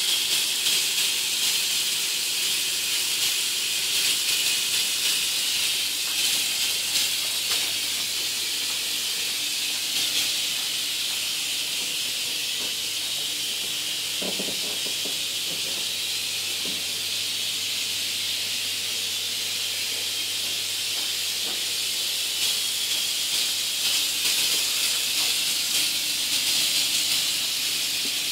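Water pouring steadily from a rectangular chrome tap into a clear acrylic sink basin, a continuous splashing hiss.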